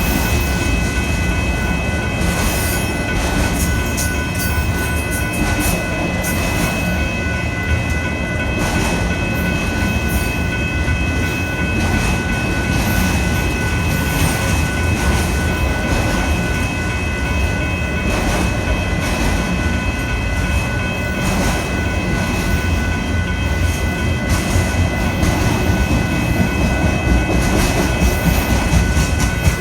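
Union Pacific autorack freight train rolling past: a steady, loud rumble of cars and wheels with rapid clicking of wheels over the rails and a steady high-pitched whine held over it.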